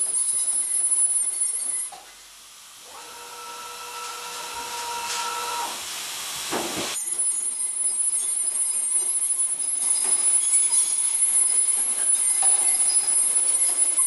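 Welding in progress: a steady hiss with a faint high-pitched whine. About two seconds in it stops and a quieter humming tone with rising hiss takes over, cutting off suddenly around seven seconds in, before the steady hiss resumes.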